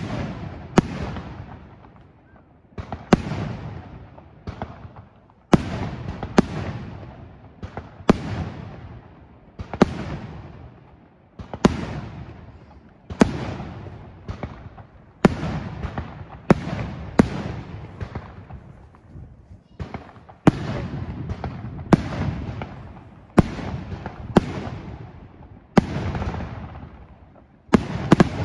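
Fireworks display: aerial shells bursting one after another, a sharp bang every one to two seconds, each trailing off over about a second before the next.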